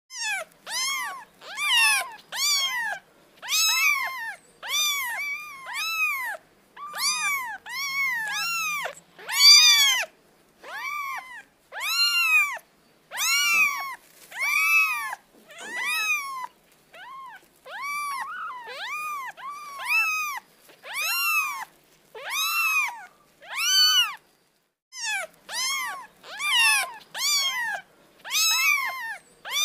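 A kitten meowing over and over: short, high mews that rise and fall in pitch, about one or two a second, with a short pause near the end.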